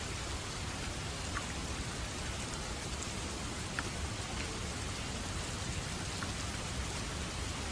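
Steady rain falling on surfaces, an even hiss with scattered drop splats.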